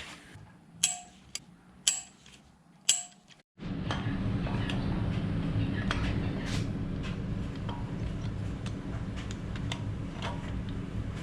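Three light, ringing metal clicks of tools and engine parts being handled, about a second apart. Then, after an abrupt cut, a steady low hum with scattered faint ticks.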